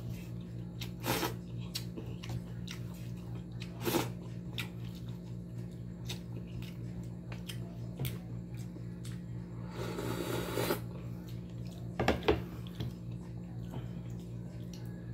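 Close mouth sounds of a person eating with their hands: chewing and smacking a mouthful of fish and rice, with a few sharper smacks or clicks about four and twelve seconds in and a short rustling noise near ten seconds, over a steady low hum.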